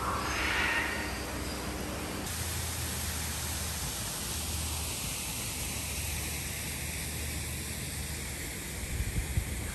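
Steady hiss of water falling down a garden fountain's cascade wall. Gusts of wind buffet the microphone near the end.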